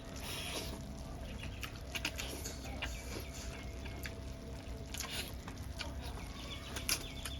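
Eating sounds: a person chewing noodles, with scattered small wet clicks and smacks, the sharpest near the end.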